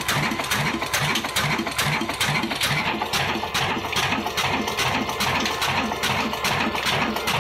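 Horizontal stationary diesel engine with twin flywheels, built by Modern Industries of Pakistan, running at a steady slow speed with an even beat of about three to four strokes a second.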